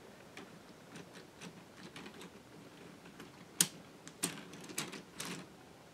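Light clicks and rattles of plastic K'nex parts handled by hand, with a few sharper clicks in the second half.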